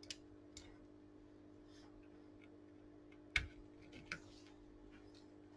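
Faint clicks and light knocks of tools and parts being handled on an electronics workbench, the sharpest about three and a half seconds in, over a steady low electrical hum.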